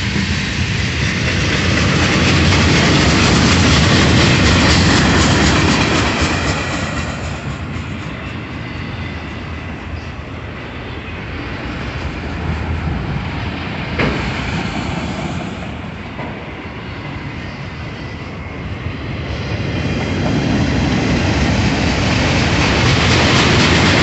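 A slow-moving freight train's tank cars and autorack cars rolling past, their steel wheels running on the rails. The noise swells and eases as the cars go by, with one sharp knock about fourteen seconds in.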